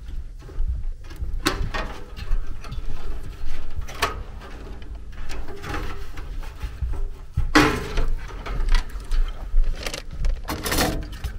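Hand tools and wiring being handled inside a furnace's sheet-metal cabinet: scattered clicks and knocks, with two longer scraping rustles, one about two-thirds of the way in and one near the end.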